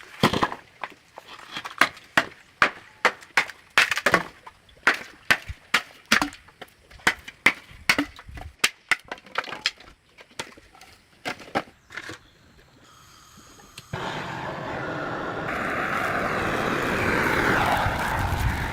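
Hammer blows on steel during knife forging: sharp, uneven strikes about two or three a second, then, after a short pause, a steady rushing noise that grows louder.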